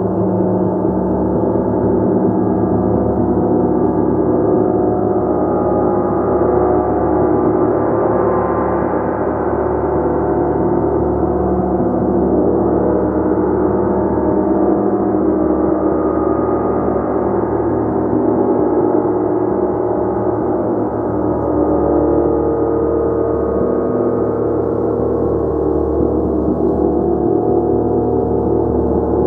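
Gong played continuously, building a sustained wash of many overlapping ringing tones with no single strike standing out.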